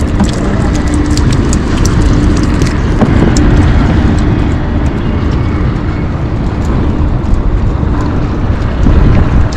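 Small boat's motor running steadily with a low rumble, mixed with wind on the microphone.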